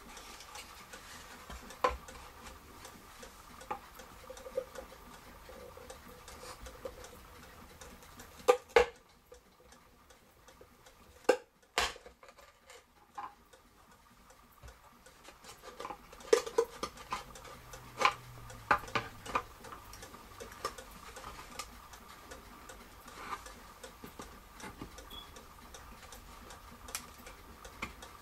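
Screwdriver and hands clicking, tapping and knocking against a wooden cuckoo clock case, in scattered irregular strokes with a few sharper knocks, over a faint steady hum.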